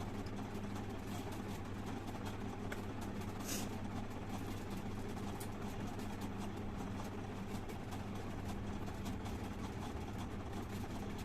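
A steady low mechanical hum, like a motor running, with one short hissing burst about three and a half seconds in.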